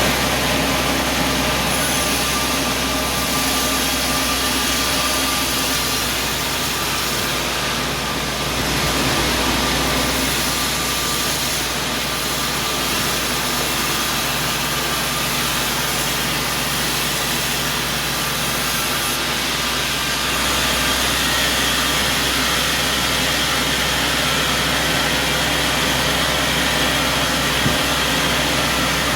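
Sawmill machinery running steadily: a constant mechanical drone with a steady hum.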